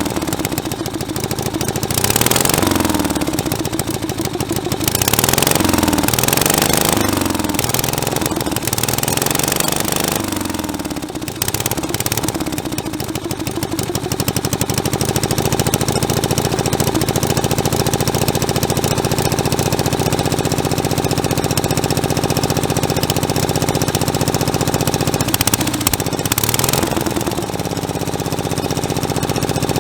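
Onan CCKA two-cylinder opposed air-cooled engine running on a 3D-printed intake manifold with a Honda carburetor, on its first test run. For about the first twelve seconds its speed rises and falls repeatedly, then it settles to a steady speed, dipping briefly a few seconds before the end.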